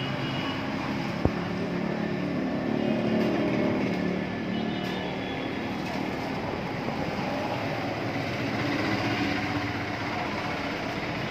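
Motorcycle engine running steadily, with one sharp click about a second in.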